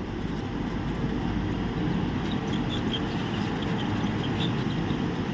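Hot air rework station blowing steadily onto a laptop motherboard to desolder a MOSFET, with a few faint high ticks over the airflow noise.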